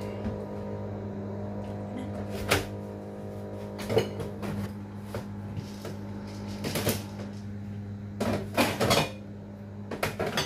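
Containers and bottles knocking and clattering as things are moved around on the shelves of an open refrigerator: a handful of separate knocks, bunched together about two-thirds of the way through. A steady low hum runs underneath.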